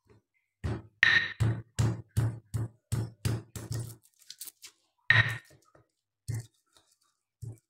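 Stone pestle (ulekan) pounding shallots, garlic and chilies in a stone mortar (cobek), coarsely crushing a spice paste: a quick run of about ten knocks, roughly three a second, then three slower single strikes.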